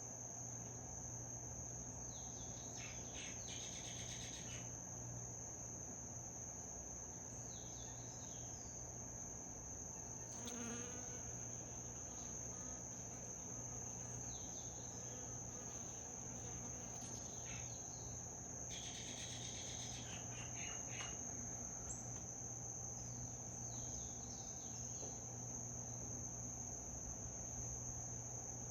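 Insects trilling on one continuous high pitch, steady throughout, with short falling chirps every few seconds over it.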